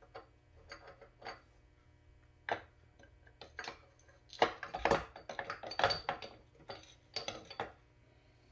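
Irregular metal clicks and clinks as a spring-loaded splined shaft is worked out of a Honda GL1200 Goldwing engine case, the shaft and spring knocking against the housing. The clinks come thickest and loudest about halfway through.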